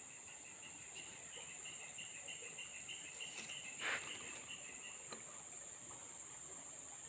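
Steady high-pitched drone of crickets or other insects, with a rhythmic chirping at about five chirps a second that stops about five seconds in. A brief sharper noise breaks in near the middle.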